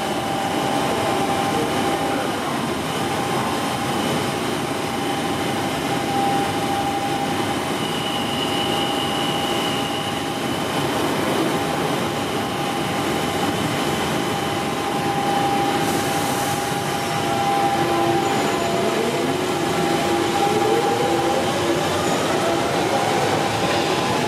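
London Underground 1992 Stock Central line train standing at the platform with a steady electrical hum, then pulling away: from about three-quarters of the way through, several rising whines from its traction equipment as it accelerates.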